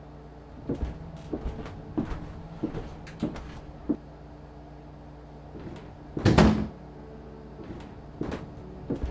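Footsteps and wooden clunks on a wooden floor: a run of sharp knocks about every half second, then one much louder door-like thud about six seconds in, with steps starting again near the end.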